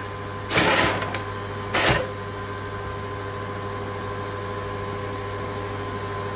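Steady electrical hum. Two brief handling or scraping noises in the first two seconds are the loudest sounds.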